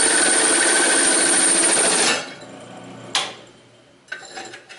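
Drill press driving a hole saw through a metal channel: a loud, steady cutting grind with a high whine for about two seconds, then it drops to the quieter sound of the press running free. A sharp metallic clank about three seconds in.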